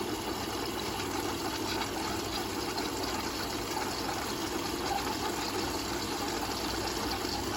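Logik L712WM20 washing machine filling, water running in steadily through its detergent drawer.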